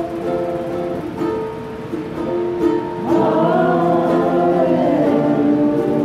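Live worship music: sustained chords from a plucked-string instrument, with a singing voice coming in about halfway through.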